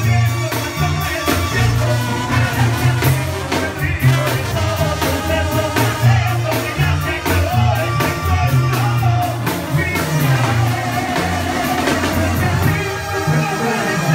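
Banda sinaloense playing live: a male lead singer singing into a microphone over trumpets, drums and a steady tuba bass line.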